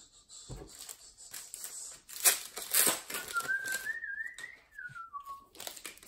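Plastic trading-card pack wrapper being torn open and crinkled, with a few sharp crackles, followed by a short whistle that wavers upward and then slides down for about two seconds.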